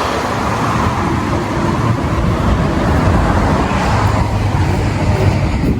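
Steady low rumbling noise with a hiss above it, the kind heard from road traffic or wind on a phone microphone outdoors.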